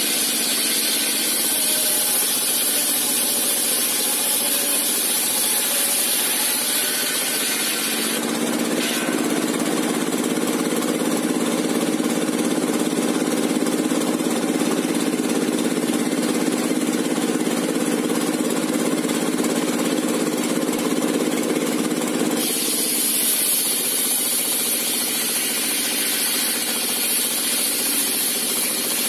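Homemade table circular saw, driven by a single-cylinder diesel engine, running steadily while ripping a long timber plank lengthwise. A high whine drops out about eight seconds in and returns near the twenty-two-second mark; in between, a deeper, heavier sound takes over.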